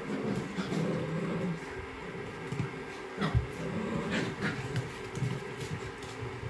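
An Icelandic Sheepdog and puppies play tug-of-war: low growls and paws scuffling on a tiled floor, with a thump a little over three seconds in. A noisy water heater hums steadily underneath.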